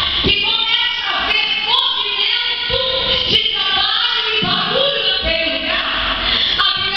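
A woman singing into a handheld microphone, her voice amplified over a PA system, holding and sliding between notes.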